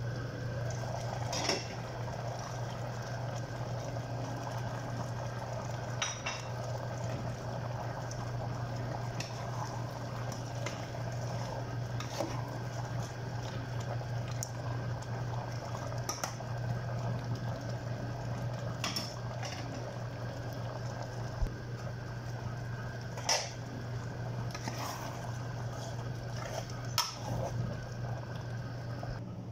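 Metal ladle scraping and clinking against a stainless steel cooking pot while a thick beef and vegetable stew is stirred, with scattered sharper knocks of metal on metal over a steady low hum.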